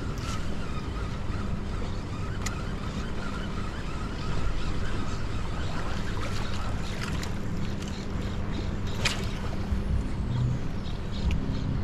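A boat's motor running with a steady low hum under a wash of water and wind noise, and two short sharp clicks.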